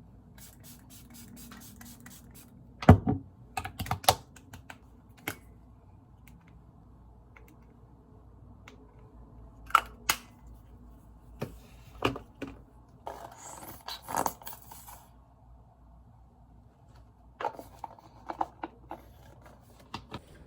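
Scattered light clicks and taps in small clusters, with a short stretch of rustling near the middle, over a faint steady room hum.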